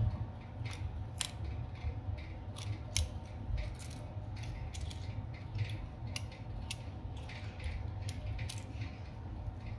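Small metal repair tools clicking and tapping against the internals of an opened smartphone as flex cable connectors are pried up, a scattered run of light sharp clicks over a steady low hum.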